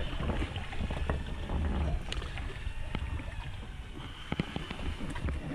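Steady low rumble with scattered knocks and clicks from a small fishing boat while a rod and reel are worked to bring a fish up from straight below.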